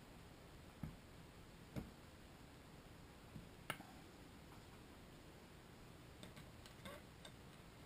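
Faint, sharp clicks and taps of metal parts and a hand tool against an engine's cylinder block as pistons are fitted: three separate knocks in the first four seconds, then a quick run of lighter clicks near the end.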